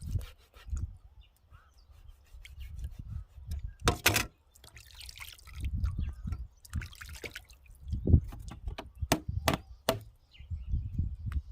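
Water splashing and dripping during handling, with several sharp knocks and low thumping.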